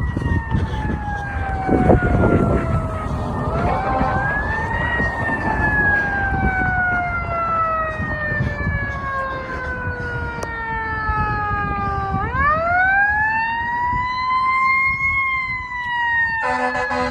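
Fire engine's Federal Q mechanical siren coasting slowly down in pitch, briefly wound up partway a few seconds in, then wound back up to a high scream about twelve seconds in and starting to fall again. Near the end the air horn starts blasting, over the low rumble of the truck.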